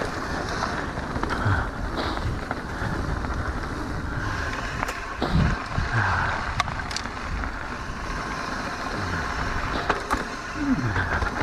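Mountain bike riding fast down a dirt trail: tyres rolling over the ground and the bike rattling over bumps, with a few sharp knocks and a couple of short falling tones, about five seconds in and near the end.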